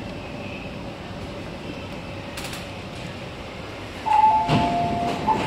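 MTR C-train running slowly into the station, a steady rumble; about four seconds in, as it stops, a two-tone electronic chime sounds, stepping down in pitch, with a clunk from the sliding doors.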